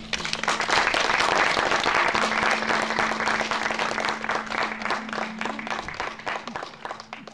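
Audience applauding: dense clapping that starts right after the reading ends and fades out near the end.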